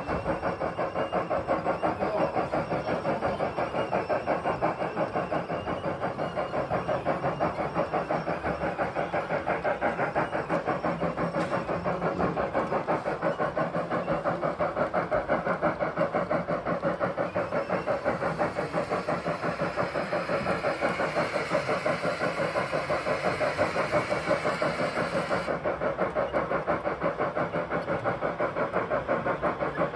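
Sound module of a KM1 gauge 1 model of the DB class 50.40 Franco-Crosti steam locomotive playing steady, rapid, even exhaust chuffs through the model's loudspeaker as it runs. About two-thirds of the way through, a higher steam hiss joins in for several seconds and cuts off abruptly.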